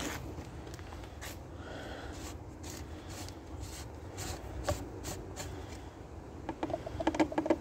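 The plastic oil filter housing cap on a Porsche Cayenne Diesel engine is unscrewed by hand and pulled up with the filter element, making plastic rubbing and scraping with scattered clicks. A quick run of clicks and squeaks comes near the end.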